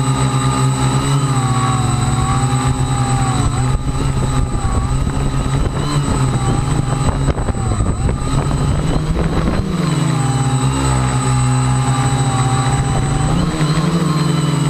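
A radio-controlled model aircraft's motors and propellers whine steadily, the pitch stepping up and down with throttle changes. From about four to ten seconds a rough rushing noise breaks up the whine, typical of gusty high wind buffeting the aircraft and microphone.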